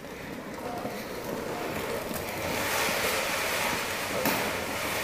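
Hard plastic wheels of a Big Wheel tricycle rolling and skidding across a wet concrete floor: a rough rushing noise that grows louder about two and a half seconds in.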